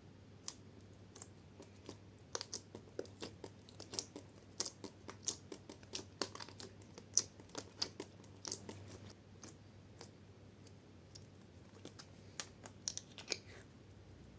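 Slime being worked by hand, giving off irregular sticky clicks, pops and crackles that come thick and fast for several seconds in the middle, then thin out to a few scattered ones.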